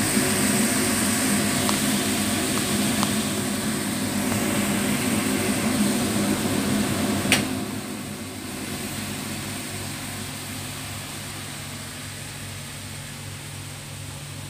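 Steady hum and hiss of a kitchen extractor fan running over a stovetop pan. A sharp click about seven seconds in, after which the sound is quieter.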